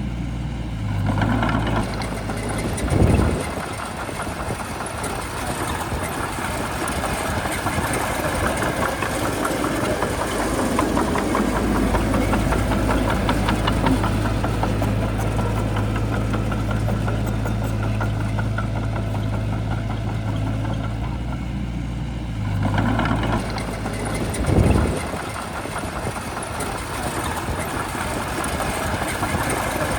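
Shantui bulldozer's diesel engine running as it works, its pitch shifting with the load, with two short louder surges about 3 seconds in and near the end.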